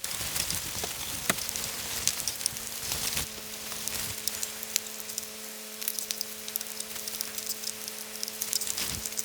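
Sauce-basted eel sizzling and crackling on a camp grill, a dense hiss full of fine pops, with a faint steady hum underneath.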